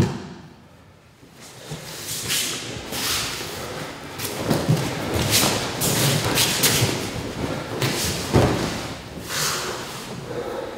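Gi and hakama cloth swishing and bare feet sliding on the mat as two aikido practitioners move through a throw, with a heavy thud about eight seconds in as the thrown partner hits the mat. A sharp thump also sounds at the very start.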